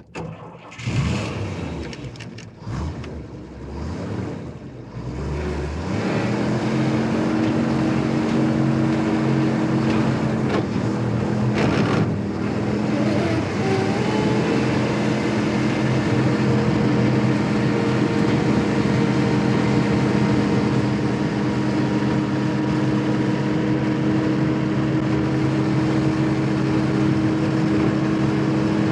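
Army truck engine starting up: about six seconds of uneven surging, then it settles into a steady running note that holds to the end, with one sharp knock about twelve seconds in.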